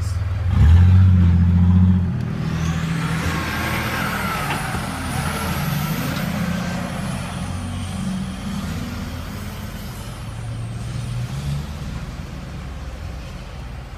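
Turbo-diesel pickup engine idling, heard from inside the cab, louder for the first couple of seconds and then settling. From a couple of seconds in, a long hiss with a faint high whistle that rises and falls over several seconds.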